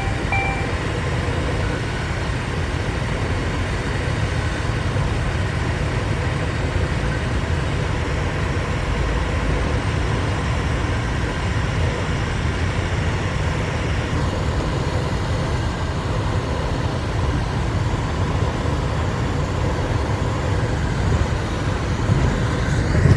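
Steady road and tyre noise of a car driving through a highway tunnel, heard from inside the cabin, with a low hum and no change in pace. A short electronic beep sounds right at the start.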